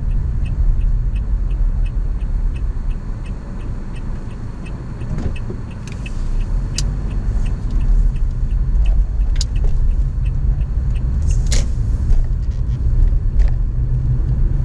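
Car cabin noise: a steady low rumble of engine and tyres, with a turn-signal indicator ticking evenly about three times a second until it stops about five seconds in. The rumble dips for a moment around then and grows louder again as the car picks up speed, with a few single sharp clicks along the way.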